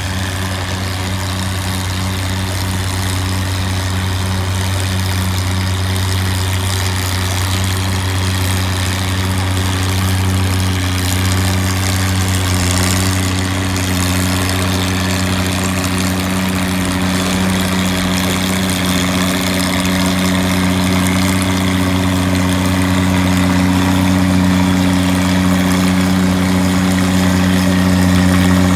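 Antique Oliver tractor engine working hard at steady revs as it pulls a weight-transfer sled: a steady low engine drone that grows gradually louder as the tractor comes closer.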